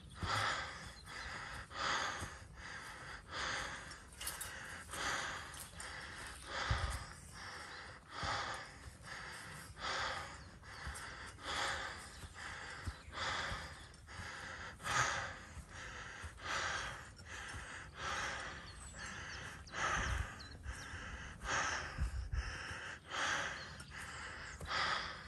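A person breathing hard and fast while climbing a steep slope, in and out in a steady rhythm of about three breaths every two seconds, with a few soft low thumps.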